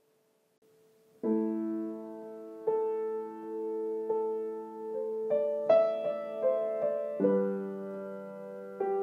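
Slow, gentle piano music: sustained chords struck every second or so, beginning about a second in.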